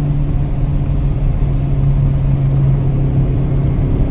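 Toyota Corolla EE100 running flat out at highway speed, heard from inside the cabin: a steady engine drone over road rumble, its pitch sagging slightly near the end.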